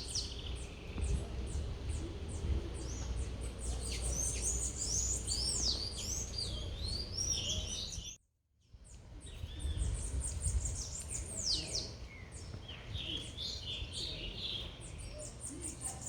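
Several small birds chirping and twittering with many quick, falling high notes, over a steady low city rumble. The sound cuts out completely for about half a second around eight seconds in.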